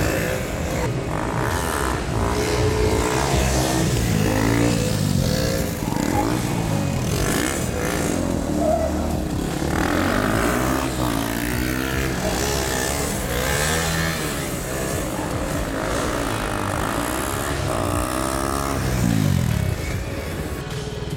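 KTM stunt motorcycles revving hard during wheelies, their engine pitch rising and falling over and over as the throttle is worked. Several bikes are heard together, and near the end one engine's revs drop off sharply.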